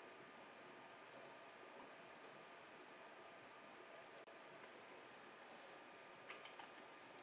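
Faint computer mouse clicks over a steady low hiss: about six short clicks, each a quick pair of ticks, spaced a second or so apart.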